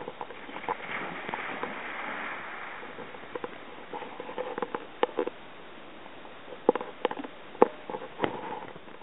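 A Labrador retriever running into a lake and splashing as it swims out on a retrieve. This is followed by a scatter of short sharp clicks or knocks in the second half.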